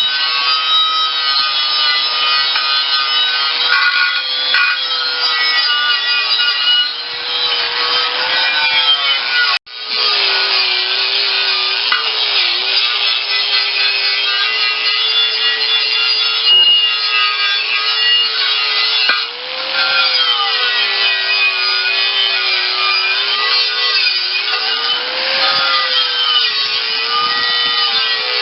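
Power sanding tool working on a steel tractor wheel rim, stripping it down for primer and paint. The motor's whine sags and rises in pitch as it is pressed against the metal, over a steady rasp of abrasive on steel. It cuts out abruptly for an instant about ten seconds in, then carries on.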